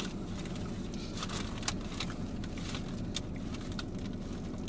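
Steady low rumble of a car cabin, with scattered faint clicks of people eating sandwiches and handling the paper wrapper.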